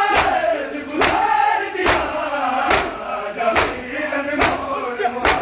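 A crowd of men doing matam, striking their bare chests with their hands in unison, a sharp slap a little under every second, while they chant a noha (Shia lament) together.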